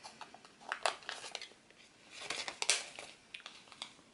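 Paper stickers being handled and pressed into a paper planner: short rustles, crinkles and clicks in a few bursts, the loudest about two and a half seconds in.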